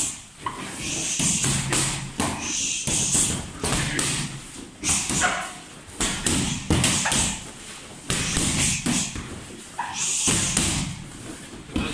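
Boxing gloves punching focus mitts in short combinations: repeated sharp thuds in irregular clusters.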